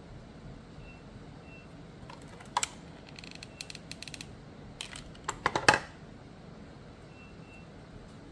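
Hot glue gun being handled: lifted from and set back into its hard plastic case and triggered to lay glue, giving a run of sharp plastic clicks and knocks in the middle, the loudest few close together toward the end of that run.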